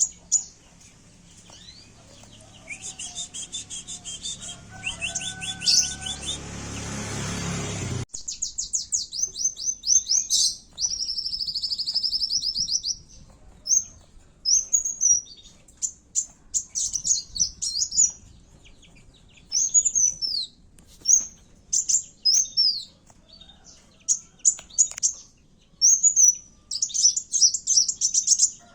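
Kowul (sunbird) singing its fighting song: bursts of very high, rapid chirps and quick trills, some sliding down in pitch, coming again and again. A low hum sits under the first part and stops abruptly about eight seconds in.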